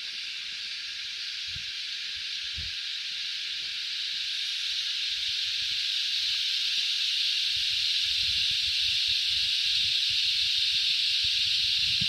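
Chorus of cicadas: a continuous high-pitched buzzing hiss that grows gradually louder. Soft low thumps underneath, more frequent from about two thirds in.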